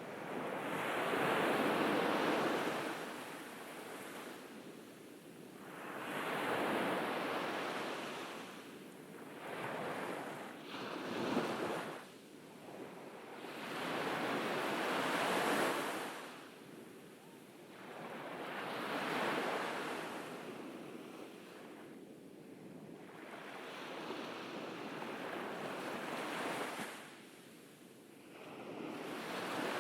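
Ocean waves breaking on a beach and washing back, in slow surges that swell and fade about every four to five seconds.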